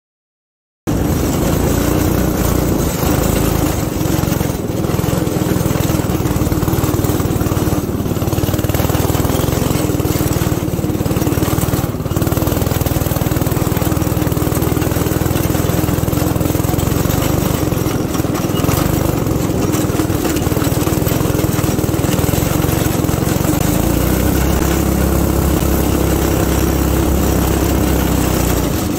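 Go-kart's small engine running steadily as the kart drives over snowy ground; it cuts in abruptly about a second in, and its low note changes a few seconds before the end.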